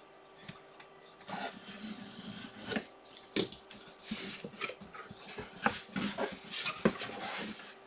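Cardboard box being opened by hand, starting about a second in: the flaps scrape and rustle, with several sharp knocks and clicks.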